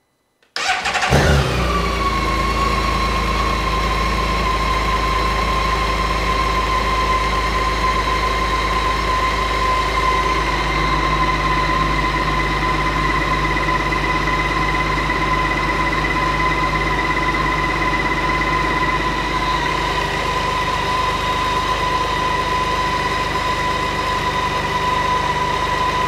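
BMW K1600GTL's inline-six engine starting about half a second in, the revs flaring briefly and settling within a couple of seconds into a steady idle with a high whine over it, left idling to warm up to operating temperature.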